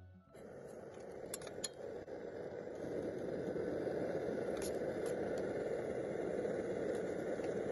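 MSR Dragonfly liquid-fuel stove burning with a steady rushing noise under a pot of simmering vegetables, growing louder over the first few seconds. A few light clinks of a metal spoon against the stainless pot sound over it.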